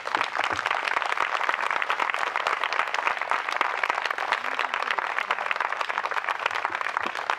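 A crowd applauding: many hands clapping in a dense, steady patter that fades a little near the end.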